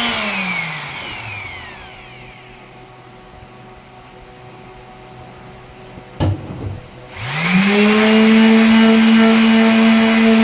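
Electric sander switched off, its motor winding down over about two seconds. About six seconds in there are two short knocks, then it is switched back on, spinning up quickly and running steadily.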